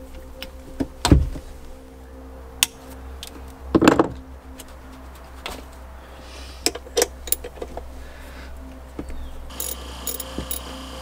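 Scattered clicks and knocks of hoses, fittings and tools being handled in a personal watercraft's engine compartment, with a louder knock about a second in and a longer clunk about four seconds in, over a steady low hum.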